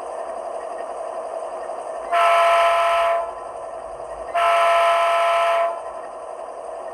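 HO-scale model diesel locomotive's Tsunami sound decoder playing through a narrow-body twin speaker: two horn blasts, a chord of several tones each lasting a little over a second, sounding over the steady running sound of the diesel engine.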